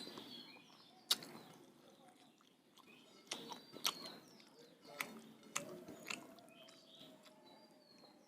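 Close-up eating sounds: chewing rice and egg curry, with sharp wet smacks and clicks of the mouth at uneven intervals, about one a second.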